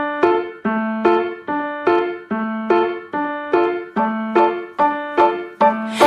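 Background music: a bright electric-piano figure, repeated chords struck in a quick even rhythm of about two to three a second.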